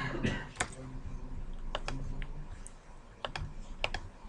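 Computer keyboard keystrokes and mouse clicks: a handful of sharp, irregularly spaced clicks over a faint low hum.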